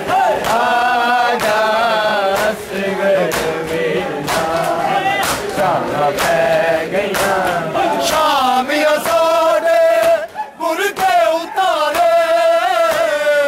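A group of men chanting a Punjabi noha (Shia lament) in unison, with sharp slaps of hands on bare chests (matam) keeping time. The singing breaks off briefly between lines about ten seconds in.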